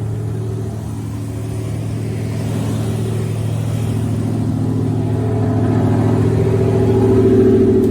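Chevy 350 small-block V8 of a 1982 C20 pickup running steadily, growing gradually louder with the revs rising slightly near the end.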